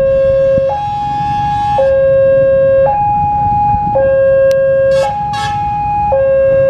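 Railway level-crossing warning alarm sounding a two-tone electronic signal: a lower and a higher tone alternating about once a second, warning that a train is approaching. A low rumble runs underneath.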